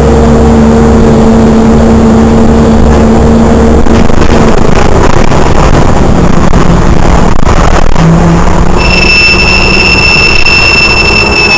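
City bus in motion, heard from inside: the engine and drive run loudly with a steady low hum that fades out about four seconds in. About nine seconds in, the bus's brakes set up a steady high-pitched squeal.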